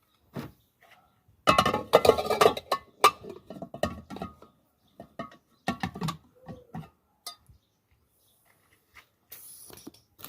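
Metal clinking and clattering of a pressure cooker and its parts being handled, with a dense flurry of knocks about a second and a half in and scattered clinks after. A short hiss comes near the end.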